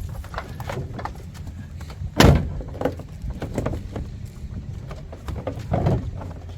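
Clicks and knocks of hands working on parts inside an open car door, with one sharp, loud knock about two seconds in and a duller thump near the end.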